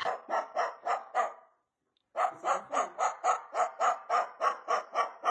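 Rapid, evenly repeated dog-like barks, about five a second, in two runs broken by a short pause about a second and a half in.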